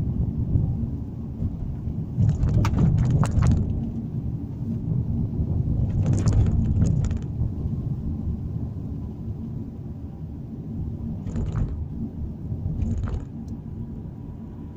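Low road and engine rumble heard from inside a moving car. Clusters of sharp clicking rattles come about two seconds in, again around six seconds, and twice more briefly near the end.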